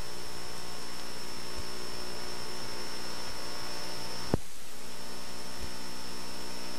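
Steady hiss and electrical hum from an old VHS tape transfer, with a single sharp click a little over four seconds in.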